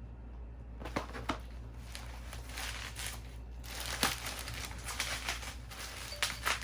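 Plastic parcel packaging and bubble wrap crinkling and tearing as a hard-to-open package is worked open. A few sharp snaps come about a second in and again around four seconds.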